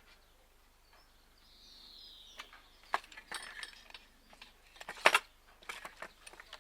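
Light clicks and knocks of small roller-reefing parts being handled and a sleeve fitted into place, a few scattered taps with the sharpest about five seconds in. A faint high note drifts slightly downward around two seconds in.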